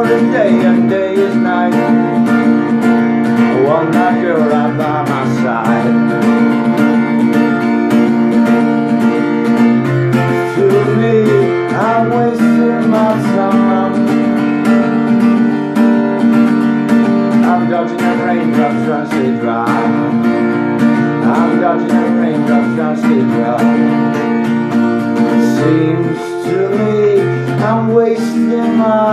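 Acoustic guitar strummed through an instrumental passage, chords changing every few seconds, with a few wordless sliding vocal notes over it.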